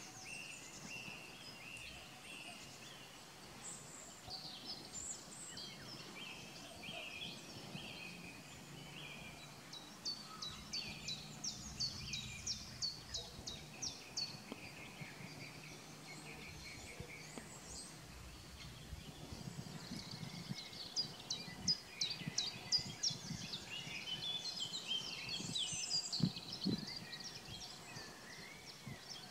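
Small birds singing and calling, several overlapping voices of quick high notes, busiest in runs about a third of the way in and again in the last third. A faint low drone sits under them through the middle.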